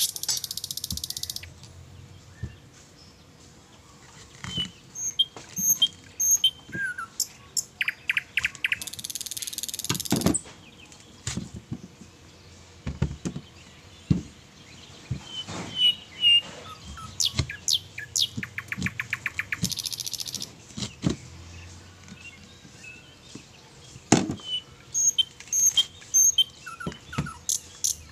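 Small birds chirping and trilling repeatedly, mixed with several sharp knocks of a large knife chopping through peeled fruit onto a wooden board.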